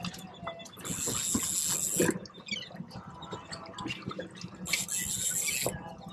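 Fishing reel giving line to a running fish: two buzzing runs of drag, each about a second long and stopping sharply, the first about a second in and the second near the end.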